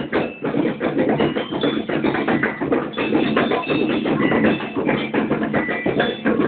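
Venezuelan banda show (marching show band) playing: drums beat a fast, steady rhythm with short high melodic notes over it.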